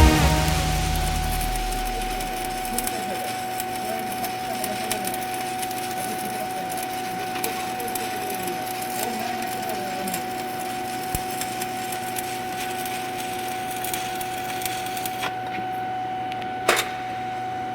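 Electric arc welding: the arc crackles and sizzles steadily over a constant hum, and the crackle stops about two seconds before the end. A single sharp knock follows.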